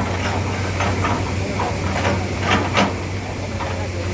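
Diesel engine running steadily with a low hum and a faint hiss, with a couple of short knocks about two and a half seconds in.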